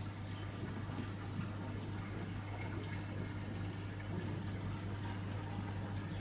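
Water trickling and dripping in a 900-litre mixed reef aquarium, over a steady low hum.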